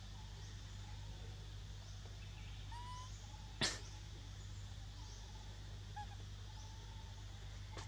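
Quiet outdoor ambience: a steady low hum with a few faint short chirps scattered through it, and one sharp click about three and a half seconds in.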